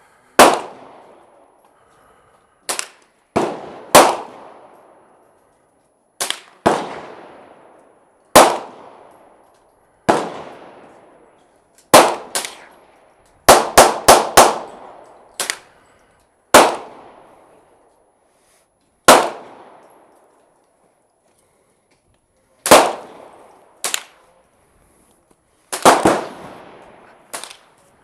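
Gunfire from several shooters at an outdoor range, mixed rifles and pistols: about two dozen sharp shots at irregular intervals, some in quick strings of three to five, each followed by a long echo.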